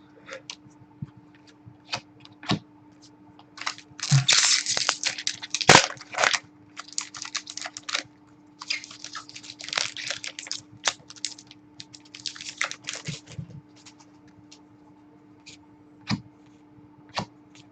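Trading cards and pack wrappers being handled: dense rustling and crinkling in several bursts, from about four seconds in until near the end, with scattered sharp clicks and taps and a steady low hum underneath.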